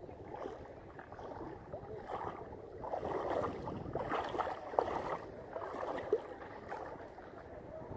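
Shallow seawater sloshing and splashing, muffled, with a few short gurgling blips. It grows louder about three seconds in.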